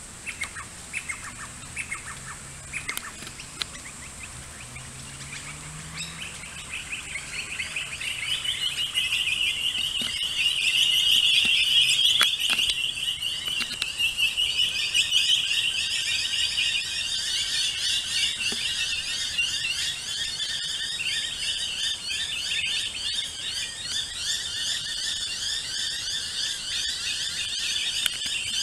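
Noisy miners mobbing with harsh alarm chatter, many birds calling rapid repeated notes at once. It builds from a few scattered short calls to a dense chorus about eight seconds in, is loudest a few seconds later, and keeps going.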